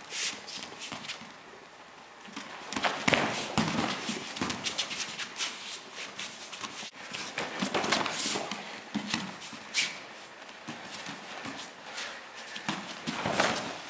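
Bare feet slapping and shuffling on foam training mats, with the scuffing and tugging of heavy gi cloth, as two grapplers spar standing and fight for grips. The thuds and slaps come irregularly, busiest in the middle and again near the end.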